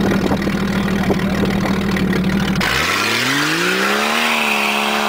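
Jeep engine idling steadily, then about two and a half seconds in revving up and holding high revs under load as it is driven in low, with some hiss from the tyres. The transmission is still slipping a little.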